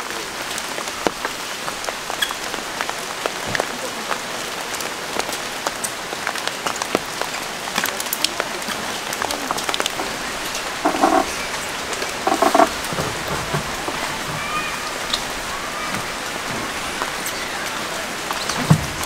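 Heavy rain falling steadily, with many separate drops tapping close by. About halfway through come two brief pitched calls a second and a half apart, louder than the rain, and a low thump near the end.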